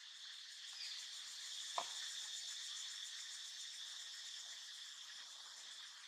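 Steady, faint insect chorus: a continuous high-pitched buzz. A single sharp tap sounds a little under two seconds in.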